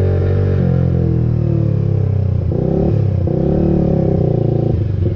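Suzuki motorcycle with an aftermarket exhaust being revved in the rising and falling blips of a rev demonstration, then dropping back to a pulsing idle near the end.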